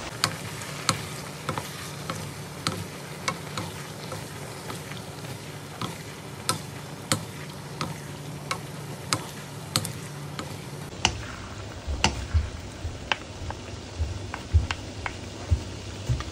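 Wooden spatula knocking and scraping against a frying pan while stir-frying vegetables and chicken, about one and a half knocks a second, over a steady sizzle. The knocks get heavier, with dull thumps, during the last few seconds.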